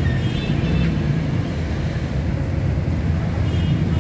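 Loud, steady low rumble of outdoor street ambience, with faint high thin tones in the first second and again near the end.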